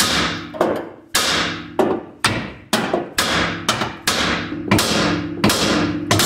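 Hammer striking a 3rd-gen Camaro's front steering knuckle about a dozen times, roughly two ringing metal blows a second, to shock the lower ball joint's taper loose while the coil spring is still compressed.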